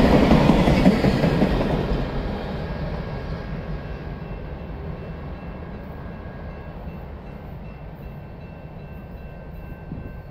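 The tail end of a CSX mixed freight train rolling past on the rails, its last boxcar's wheels running over the track; the noise fades steadily as the train moves away, leaving a low, distant rumble.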